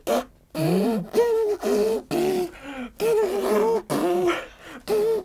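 A man imitating an elephant's trumpeting while singing a tune. It comes as a string of short, held, nasal notes with brief gaps between them.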